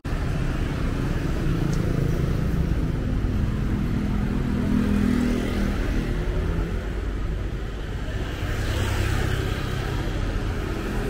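Busy street traffic of motorbikes and cars running past, with a steady rumble. An engine's hum stands out a couple of seconds in, and another vehicle goes by close near the end.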